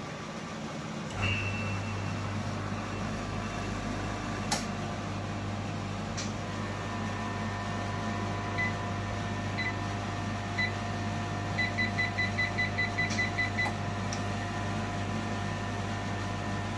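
308R vacuum coating unit running with a steady low electrical hum that starts about a second in, a sharp click partway through, then its control panel beeping as buttons are pressed: three single beeps about a second apart, then a quick run of about ten beeps.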